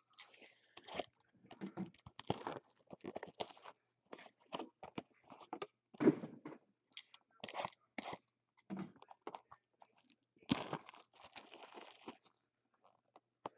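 Plastic shrink-wrap on a trading-card box crinkling and tearing as it is pulled off by hand, among taps and scrapes of the cardboard box being handled. A longer stretch of crackling comes about ten and a half seconds in.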